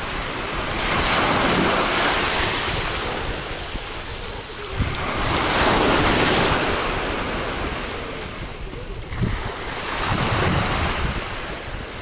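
Sea waves breaking and washing up a pebble beach, coming in three surges of surf hiss a few seconds apart. Wind buffets the microphone with a low rumble underneath.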